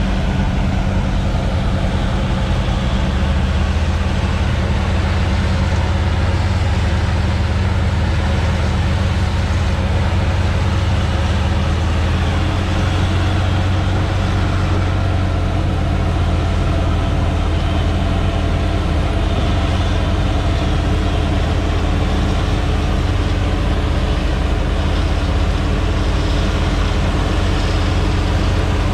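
Combine harvester running steadily while combining soybeans: an even, unbroken engine and machine drone with a low hum.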